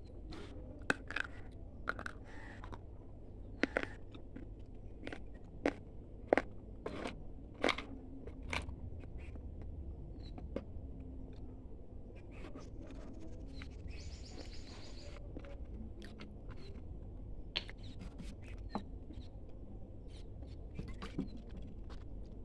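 Crunching bites and chewing of a dry chunk of multani mitti (Fuller's earth clay): a run of sharp cracks in the first eight seconds or so, then sparser crunches as the chewing goes on.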